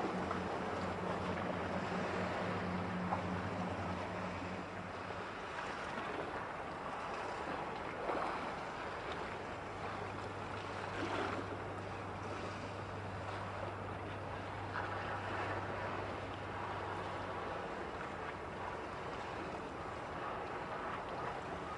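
Low drone of a large ship's engine across the water, over steady wind and lapping waves. The drone fades about five seconds in and comes back from about ten to seventeen seconds.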